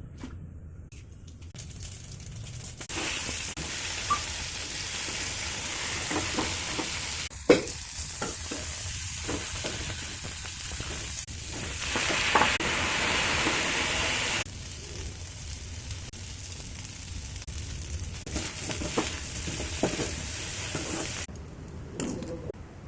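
Potatoes and beans frying in hot oil in a pan: a steady sizzle that starts a couple of seconds in, drops in level about two-thirds of the way through and cuts off near the end, with scattered clicks and scrapes of the stirring spatula against the pan.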